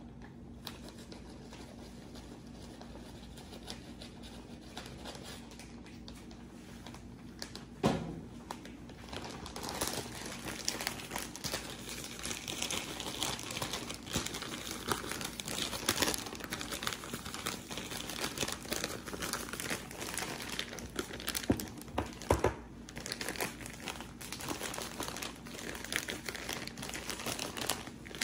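Crinkling and rustling, getting denser about ten seconds in, with a few sharper cracks.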